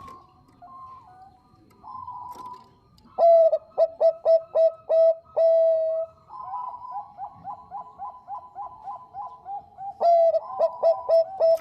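Perkutut bangkok (zebra dove) cooing: loud runs of short, clipped coos, one ending in a longer held note, with a fainter, faster string of notes between them and another loud run near the end.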